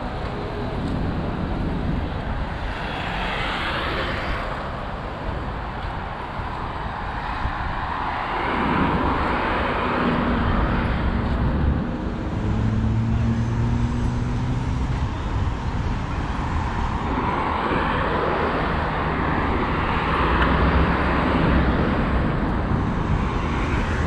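Road traffic passing along a city avenue: several cars swell past and fade one after another, with an engine's low hum for a few seconds near the middle.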